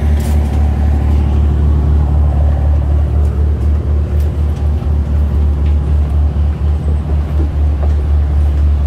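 A passenger ferry's engines running with a loud, deep, steady drone that throbs slightly, heard on board.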